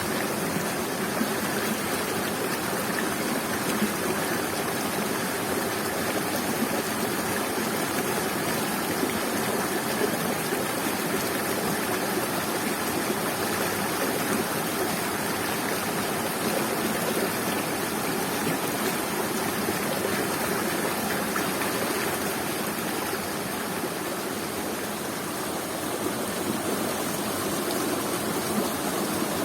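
Waterfall and the stream below it, water splashing and rushing in a steady unbroken wash.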